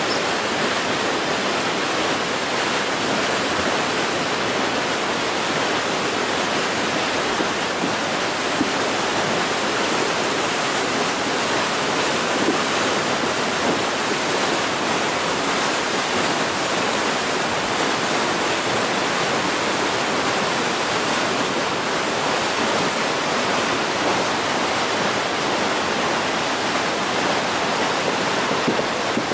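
Hill stream in spate after two days of rain, its floodwater rushing and churning over rocks in a loud, steady roar.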